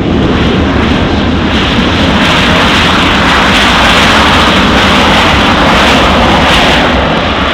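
Boeing 737-700 jet airliner passing close on arrival: a loud, steady jet roar that swells to its loudest midway and starts to fade near the end.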